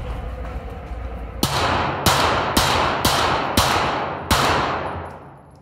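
Six handgun shots fired in quick succession, starting about a second and a half in and spaced roughly half a second to just under a second apart. Each shot is followed by a long echoing tail inside the indoor range.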